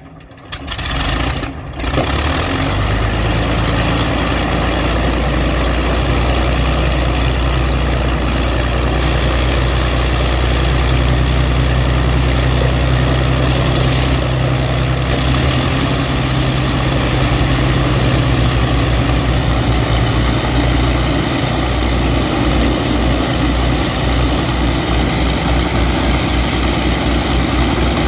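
Avro Lancaster bomber's Rolls-Royce Merlin V12 piston engine starting up: it catches about two seconds in and then runs on loudly and steadily with a deep, even drone, which turns into a regular pulsing beat over the last few seconds.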